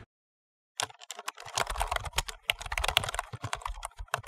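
Keyboard typing sound effect: a rapid, uneven run of key clicks that starts after nearly a second of silence and keeps going while text types onto the screen.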